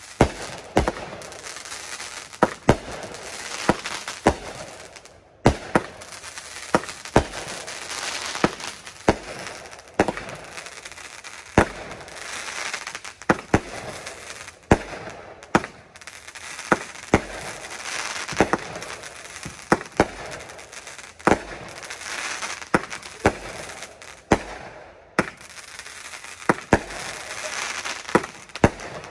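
Fireworks going off shot after shot: sharp bangs, one or two a second, over a steady crackle of bursting sparks, with two brief lulls.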